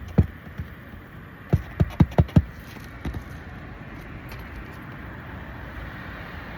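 Hammer blows driving roofing nails back through an asphalt shingle: two blows at the start, then a quick run of five about a second and a half in, and a lighter tap shortly after.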